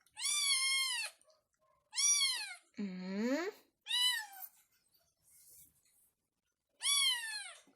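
A cat meowing five times, high arched calls with a lower rising one in the middle and a longer pause before the last. The owner takes the cat to be thirsty.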